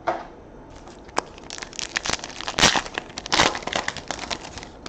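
Shiny foil trading-card pack being torn open and its wrapper crinkled. A dense run of crackles starts about a second and a half in, with the loudest tears about two and a half and three and a half seconds in.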